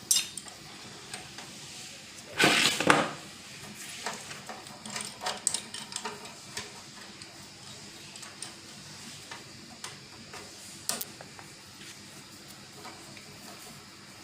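Tube cutter working on refrigerator copper pipe: scattered small metallic clicks and ticks as the tool is set and turned, with one louder rasping scrape lasting under a second about two and a half seconds in.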